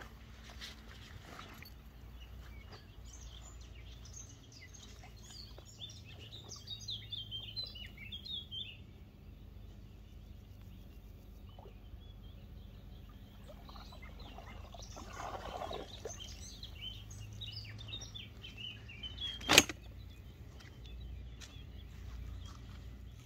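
Small birds chirping in short, quick phrases, in two spells. A single sharp knock stands out about three-quarters of the way through.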